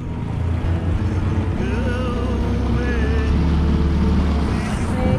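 Dinghy's outboard motor running steadily under way, a constant low drone with water and wind rushing past. A voice is heard briefly.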